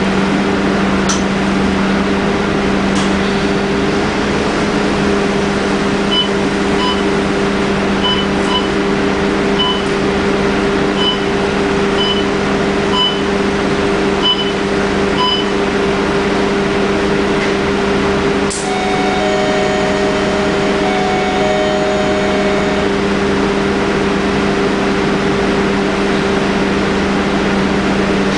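Steady hum inside a stationary Scania K310UD double-decker bus, its engine idling and air-conditioning running. Short electronic beeps come at uneven intervals over several seconds. Later a sharp click is followed by a few seconds of steady electronic tones.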